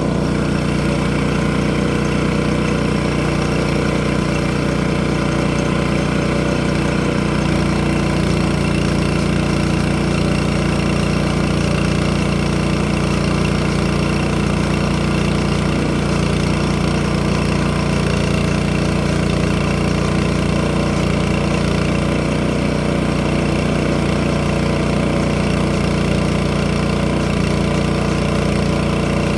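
Sawmill engine idling steadily, its pitch and loudness unchanging throughout.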